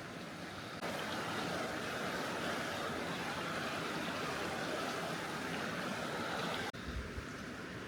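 Creek water running with a steady rushing. It gets louder about a second in and drops back suddenly near the end.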